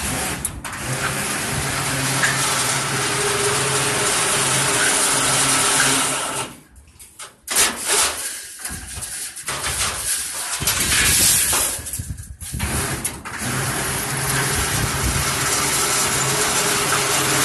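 Automatic steel-bar bending machine running: a steady hum under a loud, noisy mechanical rush. It drops away briefly twice, about seven and about twelve seconds in, then resumes.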